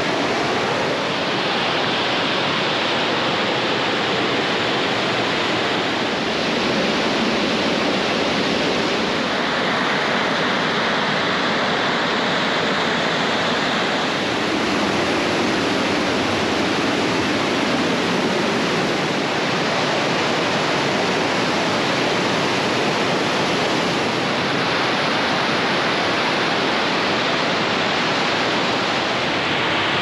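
Steady rushing of the Lammer river and its waterfalls pouring through a narrow rock gorge, its tone shifting slightly a few times.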